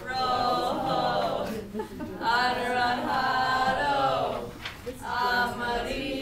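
A group of young voices singing together unaccompanied, in three long phrases with brief breaks between them.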